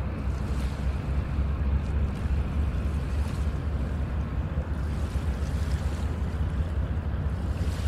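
Wind buffeting the microphone as a steady low rumble, over the wash of waves on open lake water.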